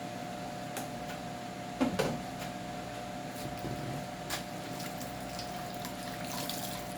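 Wiping and handling things inside a refrigerator: a few light clicks and knocks, the loudest about two seconds in, and a brief hiss near the end, over a steady hum.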